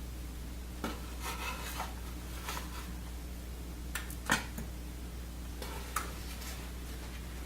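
Scattered light clinks, knocks and scrapes of kitchenware, as cinnamon rolls are lifted from a baking pan onto a plate; the loudest knock comes a little past the middle.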